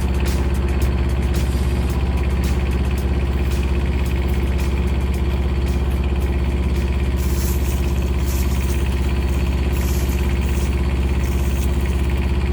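A large engine running at a steady, unchanging speed, a low even hum.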